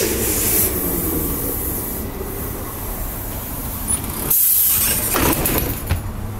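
Trolleybus standing at a stop with its doors open: steady machinery and street noise, with a wavering tone in the first two seconds. A loud burst of hissing comes about four and a half seconds in, and a shorter one follows.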